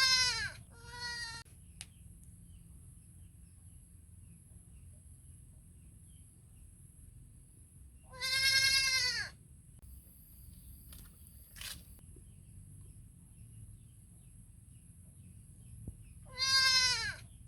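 Baby goat bleating for its mother. There are two short bleats at the start, a longer one about halfway through, and another near the end.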